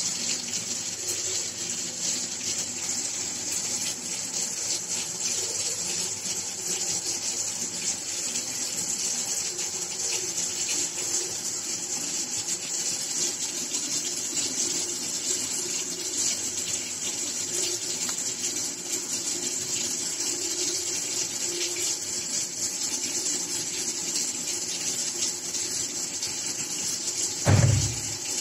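A steady rushing hiss, like running water, with one short low thump near the end.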